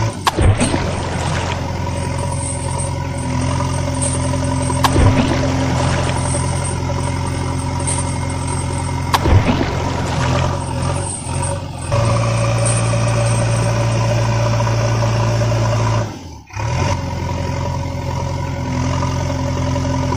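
Truck engine idling steadily, a sound effect laid over toy vehicles that have no engines of their own. Three short sharp knocks come in the first nine seconds. The engine sound changes abruptly about twelve seconds in and cuts out for a moment a few seconds later.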